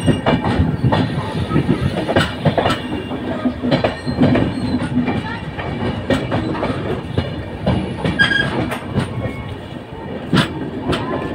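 Moving passenger train coach's wheels clattering over the rails, a steady rumble broken by many sharp knocks, heard close up from the coach's open door.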